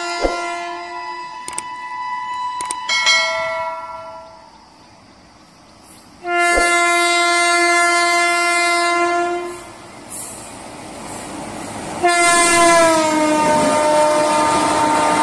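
Indian Railways electric locomotive sounding its multi-tone horn in three long blasts as it approaches at speed. The last blast drops in pitch as the locomotive passes, and the rush and rumble of the train running through follows.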